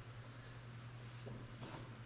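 Soapstone marker scraping faint lines on a sheet-metal patch piece, a short stroke or two.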